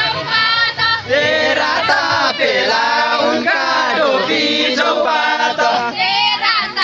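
A group of voices singing together in chorus.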